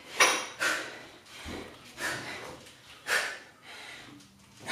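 A woman breathing hard from exertion while front-squatting a loaded barbell: about four short, forceful exhales, unevenly spaced.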